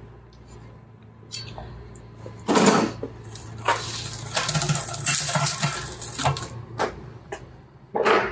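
Metal clinking and rattling of a bicycle chain and rear derailleur being handled, with two louder knocks, one about a third of the way in and one near the end.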